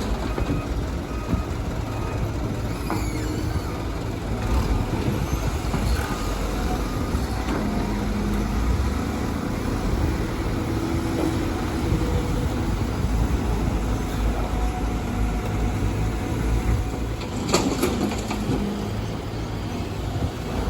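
Heavy earthmoving machinery at work, its diesel engine running with a steady low rumble and pitch that shifts as it works. One sharp metallic knock sounds a bit over three-quarters of the way through.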